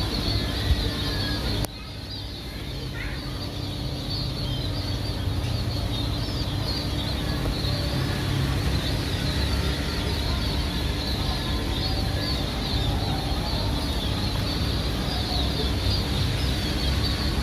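A huge flock of munias chirping all at once, a dense, unbroken chatter of many small birds over a low background rumble. The level drops suddenly just under two seconds in, then slowly builds back up.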